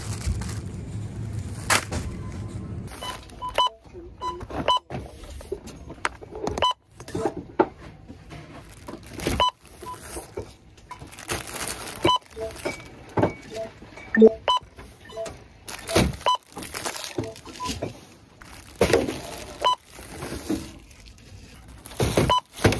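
Supermarket self-checkout barcode scanner giving short beeps at irregular intervals as items are scanned one after another, among the rustle and knock of packaged groceries being handled.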